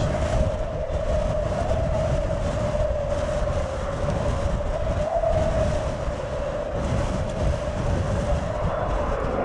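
Jet engines of a departing Boeing 787-9 airliner heard from the ground as it climbs away. A steady deep rumble runs under a held droning tone.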